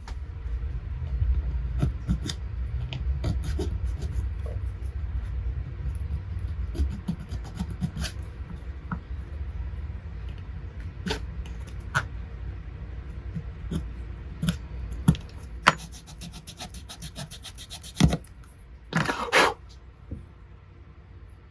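Hand sanding the glued repair on a die-cast toy truck: steady rubbing strokes, heaviest in the first half, with scattered sharp clicks and knocks as the small part is handled and a brief rush of noise near the end.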